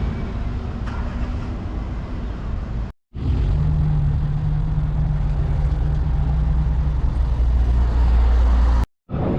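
A large engine running with a steady low drone, heard in two stretches split by an abrupt cut about three seconds in; in the second stretch a steady low hum stands out.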